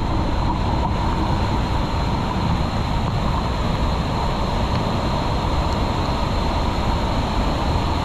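Loud, steady rush of a monsoon-swollen waterfall and its stream in full flow, with rain falling.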